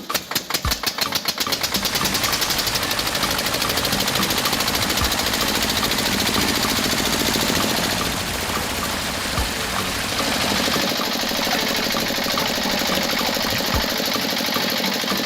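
Small engine running with a rapid, even firing rhythm. The separate beats quicken over the first couple of seconds, then settle into steady running.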